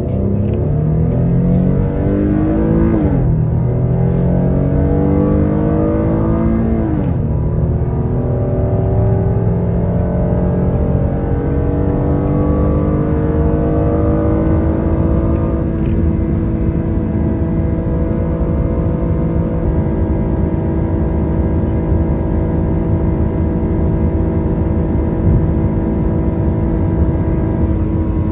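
A motor vehicle engine accelerating, its pitch rising and dropping at two gear changes within the first seven seconds, then climbing slowly and settling into a steady cruise, over a low rumble of road and wind noise.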